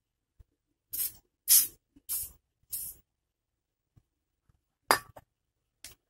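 Aerosol lubricant spray can hissing in four short bursts onto the dry ball bearing of an air-conditioner indoor fan motor rotor, lubricating it to stop the bearing's cricket-like chirping. Near the end comes a sharp metallic clink, then a lighter tap.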